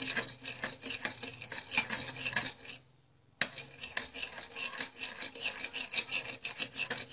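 A spoon stirring coconut oil and olive oil together, scraping against its container in a run of quick, uneven strokes, broken by a brief gap about three seconds in.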